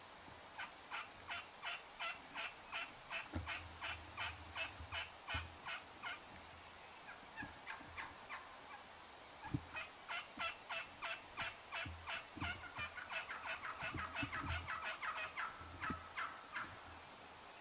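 Wild turkeys yelping in long runs of short, evenly spaced notes, about three a second. The calls pause briefly midway, then come back and quicken near the end.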